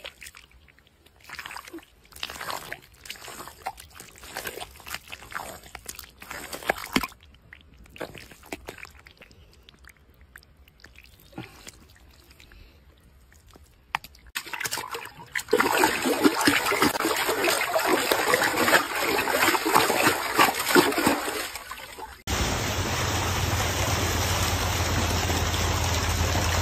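Hands working in wet mud and muddy water, with scattered squelches and splashes, then heavy continuous splashing from about halfway in. After a sudden cut near the end, steady rushing water with a low hum underneath.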